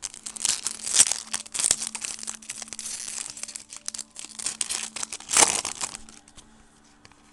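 Foil wrapper of a 2008 Upper Deck Baseball Heroes card pack crinkling and tearing as it is opened by hand, with one louder crinkle about five seconds in.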